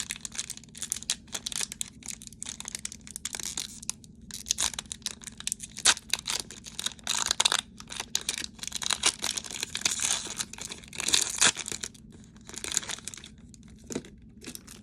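A foil Pokémon TCG booster pack wrapper being torn open and crinkled by hand: an irregular crackling rustle that thins out near the end.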